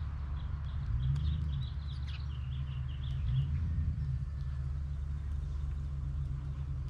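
A quick run of short, high chirping notes from a bird, lasting about two and a half seconds, over a steady low rumble of wind on the microphone.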